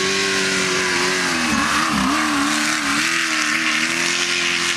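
Off-road race vehicle's engine running hard at high revs as it passes close at speed. The pitch dips briefly twice about a second and a half to two seconds in, again near the end, and then climbs back, over a steady hiss.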